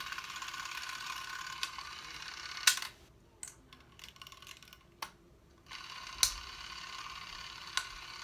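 Clockwork mechanism of a 1940s spring-wound movie camera, whirring with a fast even rattle. It stops with a sharp click about two and a half seconds in, and after a few light clicks it starts whirring again about six seconds in.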